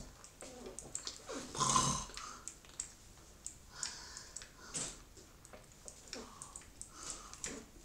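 A man's breath and throat sounds, loudest about two seconds in, with soft clicks here and there.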